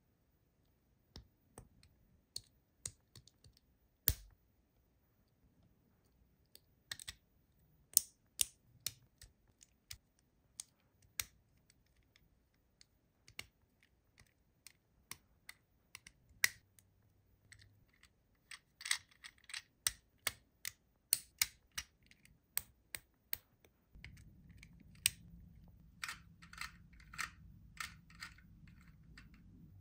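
LEGO bricks of the Twirling Rapunzel set clicking and snapping as plastic pieces are pressed together and handled: scattered sharp clicks, coming in quicker runs in the second half.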